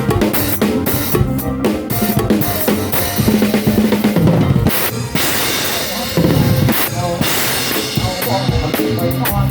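Band's drum kit playing a steady beat on bass drum and snare, with pitched instruments underneath, during a sound check.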